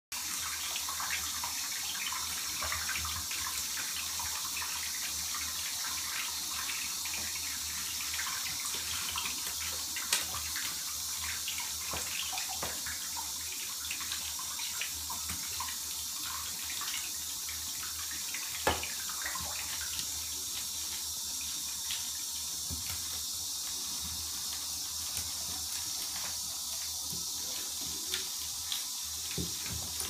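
Water running steadily from a bathtub tap, with many small splashes scattered through it and two sharper splashes, one about ten seconds in and one a little before the twentieth second.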